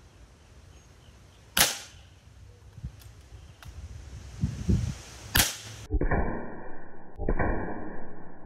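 Two sharp shots from a Macavity Arms MA2 .30-caliber PCP air rifle, about four seconds apart. About six seconds in, the sound turns to a muffled, dull rushing noise that breaks off briefly once.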